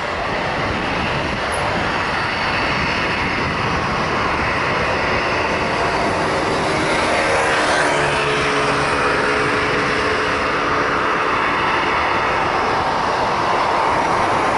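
Boeing 737-800 freighter's jet engines running loud and steady, with a whining tone that falls in pitch about eight seconds in as the aircraft passes.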